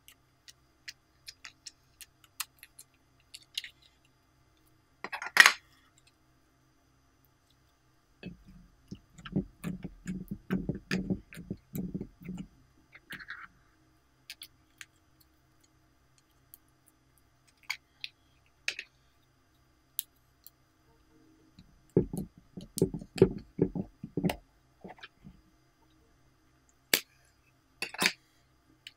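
Slime being squeezed and kneaded by hand, giving two stretches of rapid squelching pops. Scattered clicks and taps of small plastic slime molds and lids come in between, with one louder snap about five seconds in.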